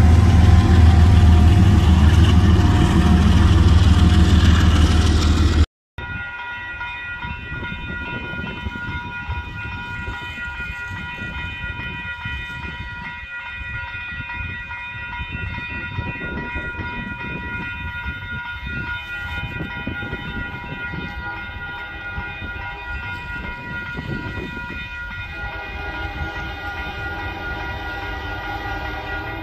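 Loud opening intro sound that cuts off abruptly about six seconds in. It is followed by a railroad grade crossing's warning bell ringing steadily over low rumble as a train approaches. Near the end a train horn joins in at a distance.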